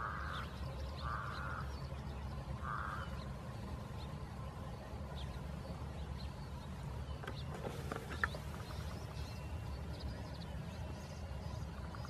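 Three short harsh animal calls within the first three seconds, bird-like, over a steady low rumble, with faint high chirps and a sharp click about eight seconds in.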